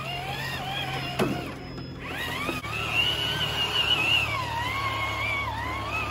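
Whine of a Traxxas TRX-4 RC crawler's electric motor, rising and falling in pitch with the throttle as the truck crawls over rocks. Background music with low held notes plays underneath.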